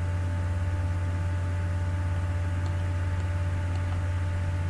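Steady low electrical hum with hiss and two faint steady high tones, the background noise of the recording setup, with a few faint clicks.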